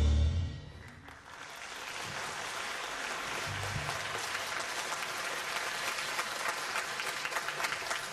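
A live band's music, with drums, stops about half a second in, and then an audience applauds, the clapping building over the next second and holding steady.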